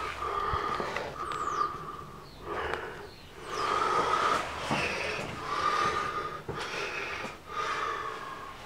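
A person breathing heavily close to the microphone, a noisy rush in and out about once a second, with small garden birds giving a few short falling chirps.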